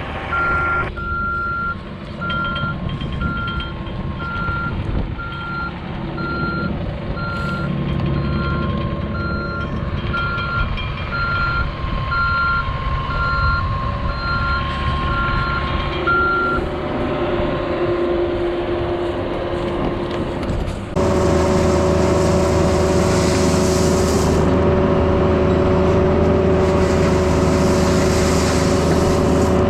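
A heavy machine's backup alarm beeping about once a second over a running diesel engine. The beeping stops past the halfway point, and a few seconds later a louder, steady engine sound starts abruptly.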